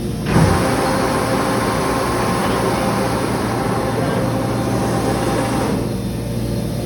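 Cabinet case clamp doing its timed final squeeze on a cabinet: a knock just after the start, then a steady rushing machine noise that stops suddenly about six seconds in, matching the clamp time of six seconds.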